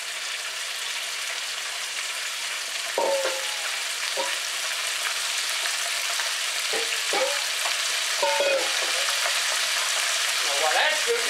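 Battered chicken pieces deep-frying in oil at 350 degrees in an electric deep fryer: a steady, dense sizzling hiss of bubbling oil.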